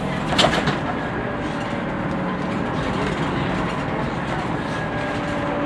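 Cabin noise of a Scania NewOmnicity city bus: a steady engine drone with a few held low tones, and a short rattle about half a second in.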